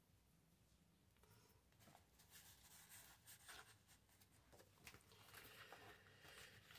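Faint rustling and light taps of paper cards being handled, starting about a second in, over a low room hum.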